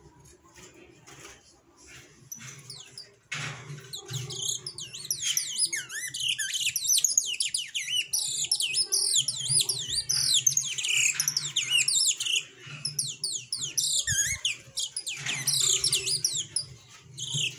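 Domestic canary singing: a long, fast run of high trills and warbled rising and falling phrases that starts about four seconds in and carries on, with a brief pause about two-thirds of the way through.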